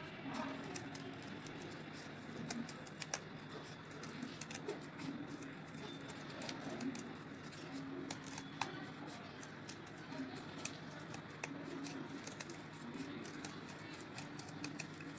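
Scissors cutting through thin cardboard in short, irregular snips while working around a circle.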